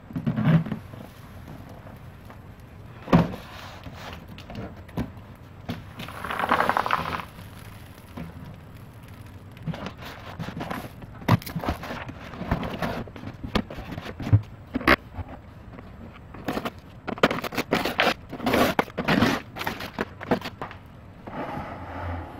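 Cardboard fireworks-cake box being handled and unwrapped by hand: the box knocking and scraping on the floor, with cardboard and paper wrapping crinkling and tearing in short bursts and sharp clicks.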